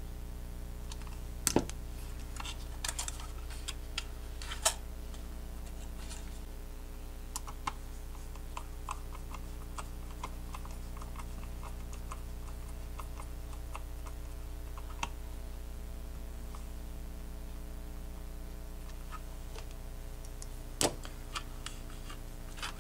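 Irregular small clicks and ticks of a precision screwdriver turning screws into a DJI Mini SE drone's plastic body, with a few louder knocks: the loudest about a second and a half in, another near the end. A low steady hum runs underneath.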